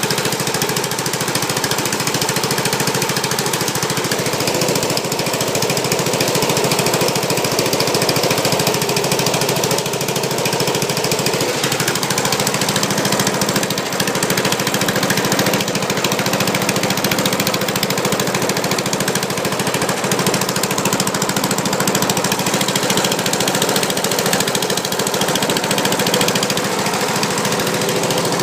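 Briggs & Stratton Powerbuilt 4155 (Intek 15.5 HP OHV, 500cc) single-cylinder ride-on mower engine running steadily at a constant speed. It is newly fitted and has no throttle cable connected.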